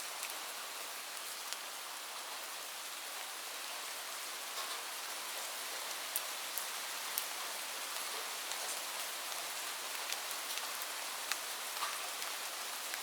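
Light rain falling: a steady even hiss with scattered individual drops clicking sharply on a surface.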